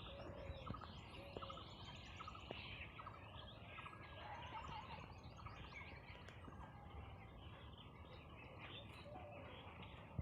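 Faint outdoor ambience of small birds chirping and twittering, many short calls overlapping, over a low steady background hiss.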